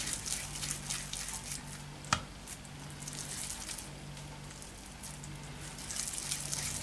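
Faint soft squishing and rubbing of bread dough being rolled into a ball by hand on a silicone baking mat, with one sharp tap about two seconds in, over a steady low hum.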